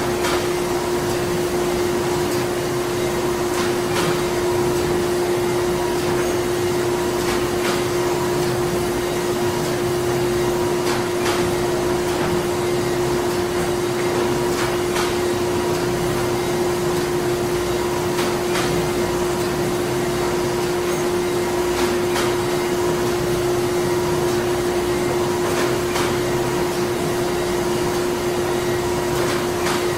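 Printing-factory machinery running: a steady mechanical hum and whir over a noisy wash. A sharp click repeats regularly, about every three and a half seconds.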